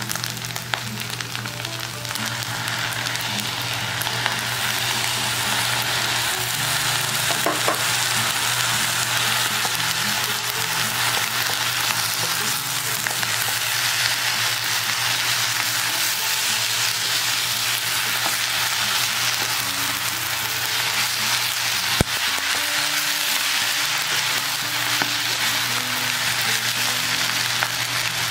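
Fried rice sizzling in a hot nonstick pan as a soy, fish and oyster sauce mixture goes in and is stirred through with a wooden spatula, a steady hiss throughout. One sharp tap about two-thirds of the way through.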